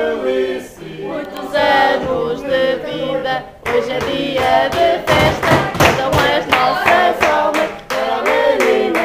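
A group of voices singing a birthday song together, with hand clapping in time joining in about four seconds in.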